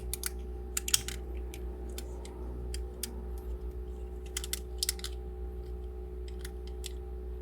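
Irregular small plastic clicks and clacks from the parts of a transforming Wing Gundam robot figure being handled and worked loose. A cluster of clicks comes about a second in, and another around the middle. A steady low hum runs underneath.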